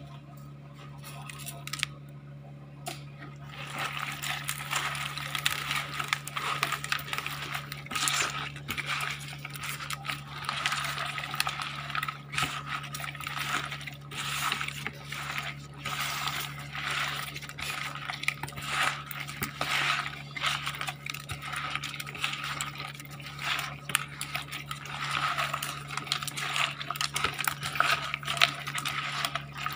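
Hands mixing raw fish pieces with coarse salt in a plastic basin, salting them for kasam. Irregular wet squelching and gritty rubbing with many small clicks start about three and a half seconds in, over a steady low hum.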